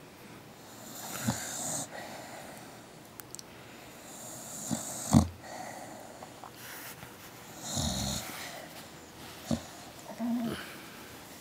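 Sleeping dog breathing heavily, with slow snoring, wheezy breaths and several short, sharp snorts, the loudest about five seconds in. Near the end it gives a short low groan as it stretches.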